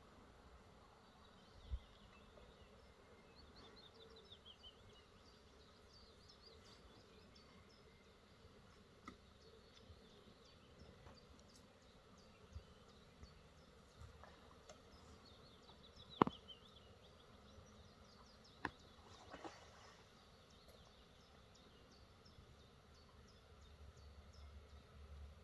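Faint buzzing of honeybees around an open hive, with a few sharp clicks and knocks, the loudest about two-thirds of the way in. Faint high chirps come and go.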